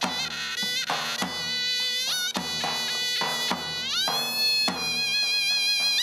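Turkish folk dance music on davul and zurna: a shrill, buzzy double-reed zurna plays a wavering melody with pitch glides, over a big davul drum struck about once a second.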